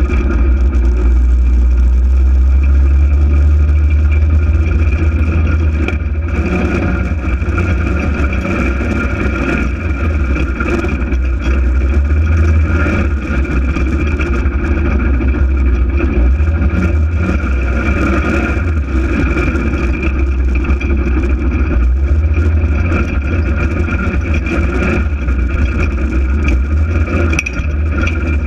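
Polaris RZR 800 side-by-side's twin-cylinder engine running steadily under way, with a heavy low rumble and a steady whine above it, its loudness swelling and easing a little.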